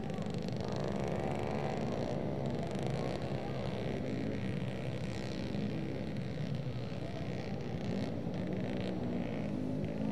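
Motorcycle engines revving in the background, their pitch rising and falling about a second in and again near the end, over a steady hum of noise.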